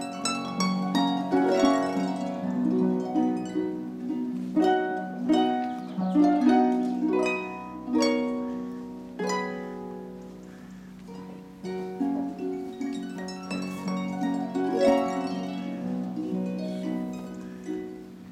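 Solo pedal harp being played: plucked notes and chords ringing over held bass notes, softer after about ten seconds.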